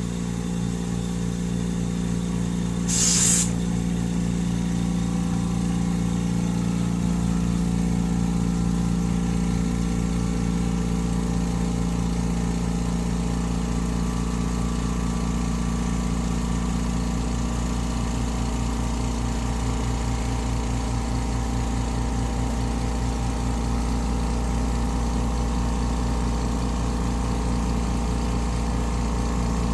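Mitsushi XH-6009L 9-litre 600 W air compressor running with a steady motor hum, with a short hiss about three seconds in.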